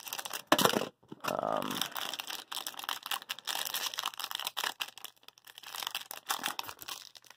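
Foil wrapper of a Topps hockey card pack crinkling and tearing as it is pulled open by hand, in quick, uneven crackles.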